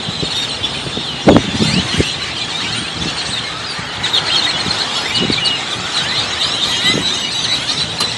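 A huge flock of birds calling together at their roost: a dense, unbroken din of squeaky, high-pitched chirps and squeals. There is a short thump about a second in.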